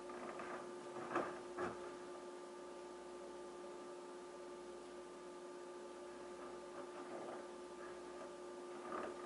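Two soft knocks of boots stepping on a snow-covered wooden deck, about a second in, over a steady faint hum.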